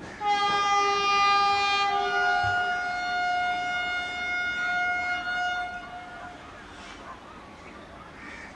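Vande Bharat Express train horn sounding one long blast of about six seconds, a chord that shifts slightly lower about two seconds in and then fades away. It is the driver's acknowledgement honk to the trainspotter.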